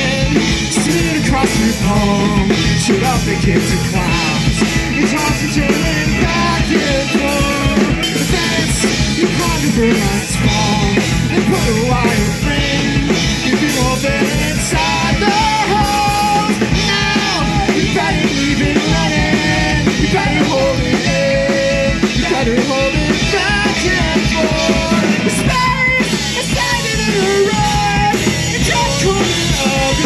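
Live rock band playing loudly without a break: two electric guitars, electric bass and a drum kit, with a man singing lead.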